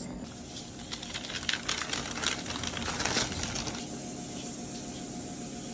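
Quick light clicks and taps of kitchen handling on a worktop for about the first four seconds, then only a faint steady background hum.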